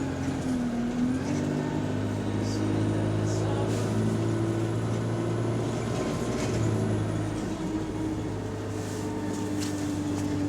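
A bus's diesel engine and driveline heard from inside the saloon, running steadily under way, with its note shifting about a second in and again around six to seven seconds in, a faint high whine above it and a few light interior rattles. The gearbox is in limp mode without kickdown, as the uploader titles it.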